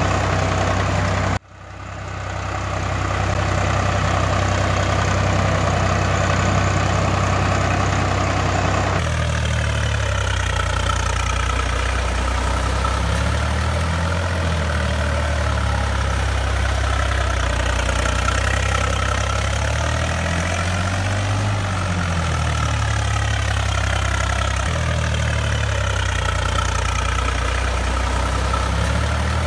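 Tractor engine running steadily, laid over as a sound effect. It cuts out abruptly just over a second in and fades back up. About nine seconds in it changes to a recording whose pitch slowly rises and falls, like gentle revving.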